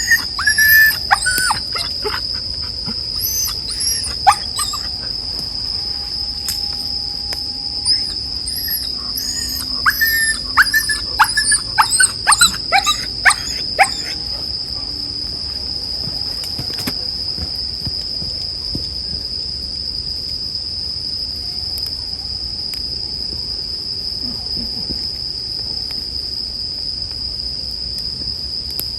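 Bell crickets singing in a steady, high-pitched chorus. For the first fourteen seconds, short rising and falling whistle-like animal calls and a few sharp crackling pops of a campfire sound over it, then stop.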